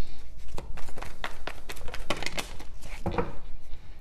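A deck of tarot cards being shuffled by hand, an uneven patter of card clicks.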